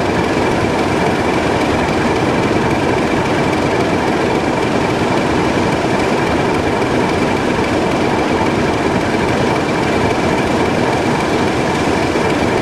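A small diesel shunting locomotive running as it creeps forward, under a steady, loud hiss of escaping steam from a standing steam locomotive.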